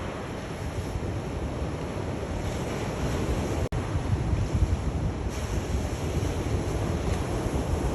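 Sea waves washing on a shore: a steady rush of surf, with a split-second dropout about halfway through.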